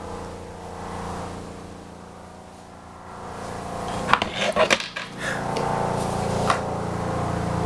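Small hard makeup containers clicking and clattering against each other for about a second, a few seconds in, as a bag of makeup is rummaged through, with one more click a little later. A low steady hum runs underneath.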